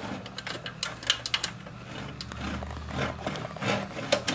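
Scattered light clicks and knocks of a hand and damp cloth working among the plastic and metal roller parts inside an opened Panasonic 8045 photocopier, over a steady low hum.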